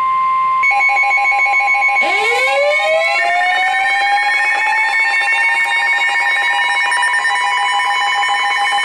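Emergency alert tones: a steady high attention tone, joined under a second in by rapidly pulsing electronic beeps, and about two seconds in by a siren that winds up to a steady wail and begins to wind down at the very end. It is the alert sound that opens a new weather warning.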